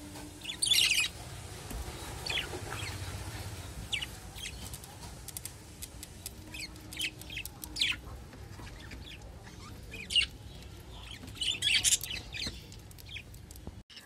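Budgerigars chirping and chattering in short, scattered high-pitched calls, with a few louder squawks about a second in and again near the end.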